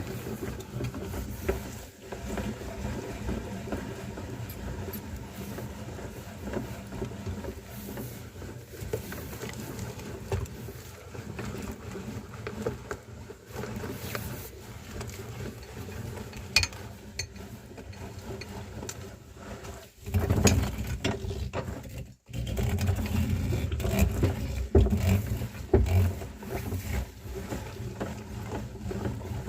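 Meat grinder running and grinding a cream roll, a steady mechanical hum under soft irregular squishing. It gets louder about two-thirds of the way in.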